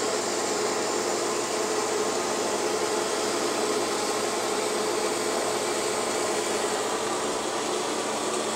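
Zephyr ring saw running steadily while its water-fed ring blade cuts through a sheet of glass: an even, unbroken motor whine with a hiss over it.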